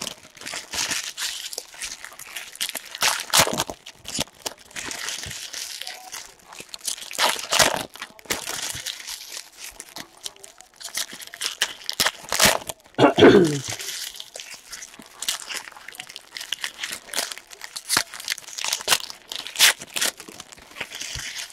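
Trading-card pack wrappers crinkling and tearing as packs are opened, with cards rustling as they are handled; several louder crinkles and rips come through at intervals.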